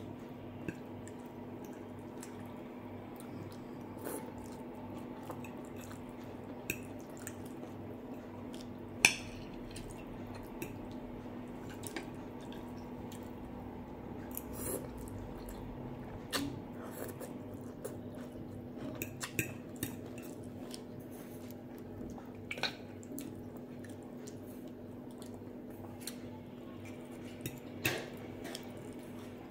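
Fork and knife clicking and scraping on a glass plate, with wet chewing and mouth sounds between, over a steady low hum. The clicks come irregularly, with one sharp clink about nine seconds in.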